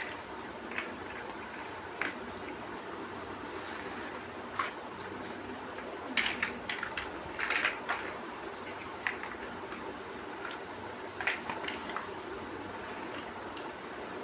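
Lego bricks being handled and pressed together: scattered small plastic clicks and rattles, busiest about halfway through, over a steady hiss.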